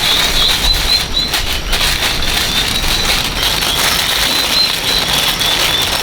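Small birds chirping: many short, high chirps repeating over a steady noisy rustle with scattered clicks.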